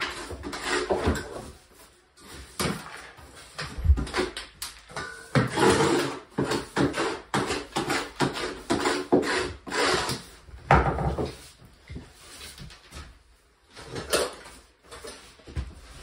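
Hand tools knocking, clicking and scraping on a plywood subfloor as old vinyl plank flooring is pried up, in a run of irregular sharp knocks.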